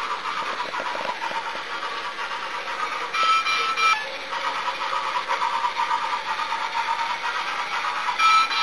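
Mr. Christmas motorized toy roller coaster running, its cars and chain lift making a steady rapid clattering on the plastic track. A short pitched chime sounds twice, about three seconds in and near the end.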